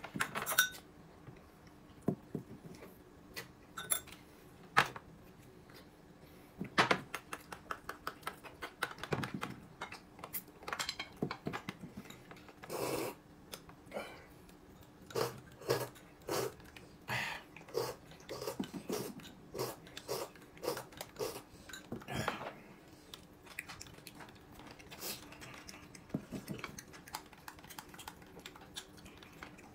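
Irregular light clinks and knocks of dishes and eating utensils, with chewing, as people eat a meal at the table.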